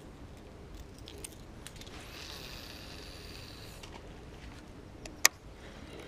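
Fishing reel being wound in during a lure retrieve: a faint whirring that picks up for about two seconds midway, then one sharp click about five seconds in.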